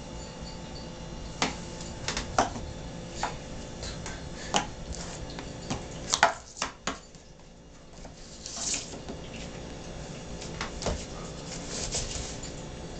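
Plastic Play-Doh tubs clicking and knocking as they are handled and set down on a tabletop: about a dozen separate light knocks, the loudest pair about six seconds in, over a faint steady hum.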